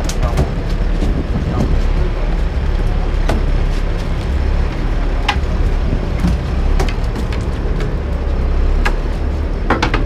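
Fishing boat at sea with its engine running in a steady low rumble, mixed with wind and water noise, and scattered sharp clicks and knocks.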